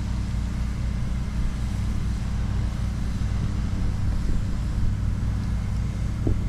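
A motor or engine running with a steady low drone.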